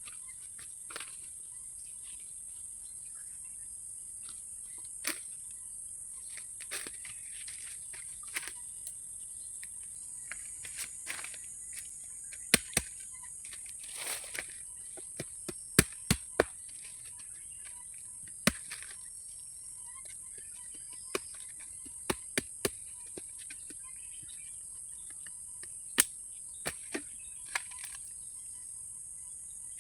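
Steady high-pitched drone of crickets or other insects, with scattered sharp clicks and snaps over it, a few of them loud.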